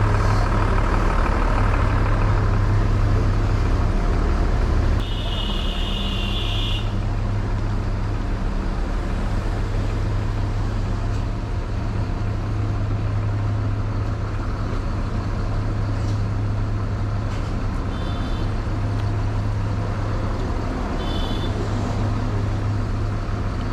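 Bus engine running steadily with a low hum. About five seconds in, a high electronic beeping tone sounds for about two seconds, and two shorter ones follow later.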